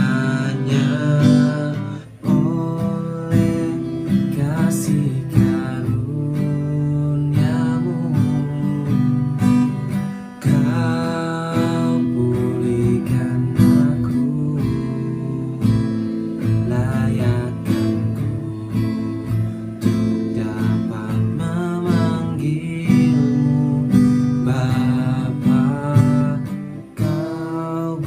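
Acoustic guitar strummed steadily, accompanying a man singing a song.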